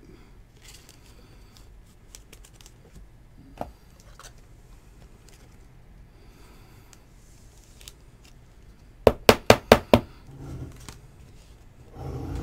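Scissors snipping open a trading card pack: about five quick, sharp snips nine seconds in, after a stretch of faint handling ticks.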